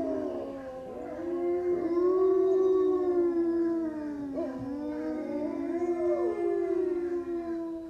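Wolves howling together: several long, overlapping howls that slide slowly up and down in pitch.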